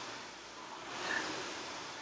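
Air-resistance rowing machine's fan flywheel whooshing, swelling with each stroke about every two seconds.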